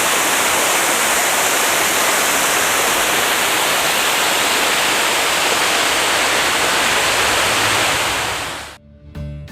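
Waterfall rushing, a loud steady roar of falling water that fades out quickly near the end as music begins.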